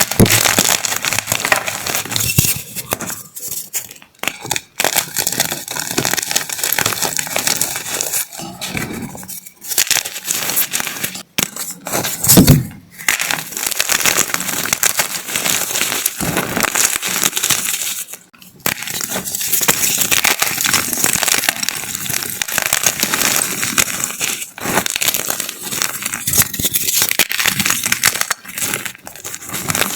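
Large block of gym chalk being crushed and crumbled: a dense, crisp crackling crunch that goes on with a few brief pauses, and one louder low thump about twelve seconds in.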